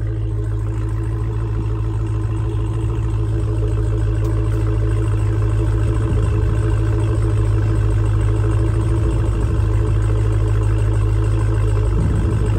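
Dodge Scat Pack's 392 HEMI V8, fitted with a Hellcat airbox, idling steadily at an even pitch.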